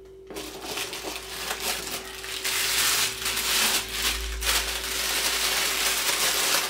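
Plastic bubble-wrap packaging crinkling and crackling as it is handled and pulled out of a cardboard box, growing louder about two and a half seconds in.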